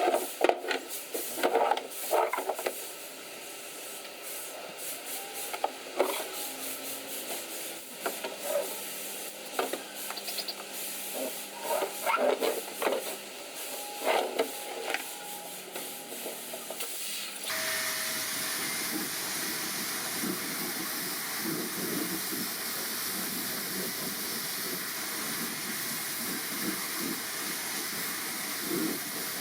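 Scattered clicks and knocks of handling. About halfway through, a steady spray hiss starts suddenly and carries on.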